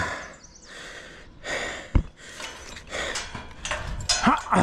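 A man breathing hard and panting from the exertion of climbing a steel lattice tower. There is a sharp knock about two seconds in, and a short voiced exhale near the end.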